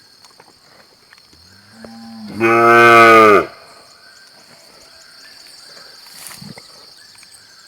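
A single long moo from cattle that starts soft and low, then swells into a loud call for about a second before it cuts off.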